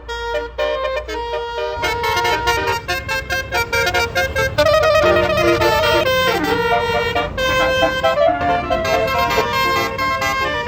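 Bus 'telolet' basuri horn, a multi-tone musical air horn, playing a quick melody of stepped notes, one after another.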